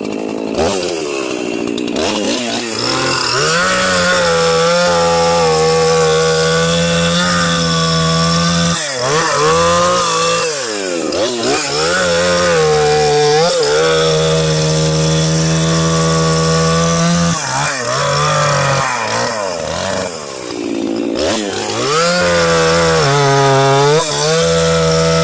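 Chainsaw with an aftermarket A2 Designs intake, a Gearhead's muffler and an 8-pin sprocket running hard at high revs for long stretches, cutting wood. Its pitch drops and climbs back several times as the revs fall and pick up again.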